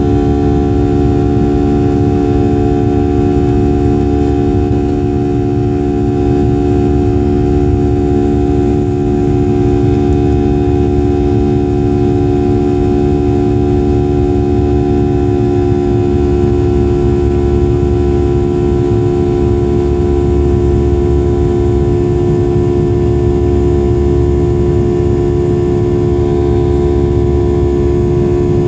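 Boeing 737's CFM56 turbofan engines at climb power, heard from inside the cabin beside the engine: a steady low rumble with a droning hum of several steady tones, unchanging throughout.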